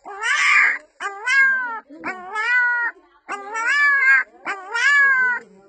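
Young puppy crying: five high-pitched cries, each under a second, rising and then falling in pitch.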